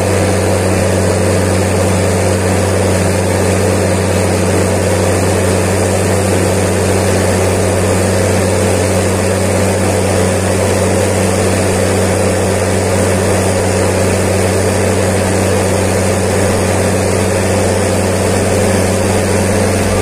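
Tractor diesel engine running at a steady speed while the tractor drives along a road, heard close up from the bonnet: an even drone that does not rise or fall.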